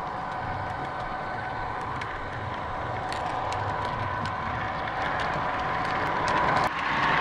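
O-gauge model train running on its track: a steady hum from the model diesel locomotive, with the wheels clicking over the rails. A louder rushing noise sets in suddenly near the end.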